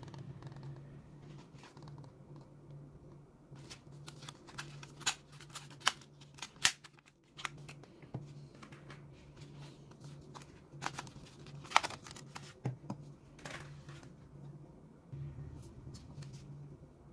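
Hard plastic blister packs of correction tape and glue tape being opened and handled, giving a scattered string of sharp clicks and crackles, loudest about six seconds in and again near twelve seconds. A low steady hum sits underneath.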